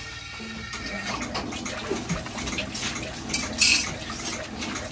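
Hands scraping and clinking in a metal wok with water, a steady run of small clatters and light splashes, with one louder clatter late on.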